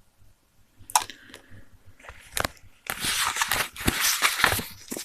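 Crinkling, crackling handling noise with two sharp clicks, then a burst of dense crackling through the second half.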